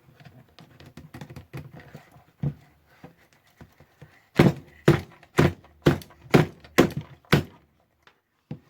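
A run of seven sharp knocks, about two a second, starting about halfway through, as a tool is struck against a stuck part of a Roberts R717 radio to work it loose. Fainter clicks and scraping come before them.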